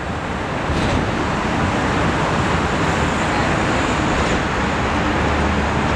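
Steady roar of road traffic, a continuous wash of cars passing, growing a little louder just under a second in.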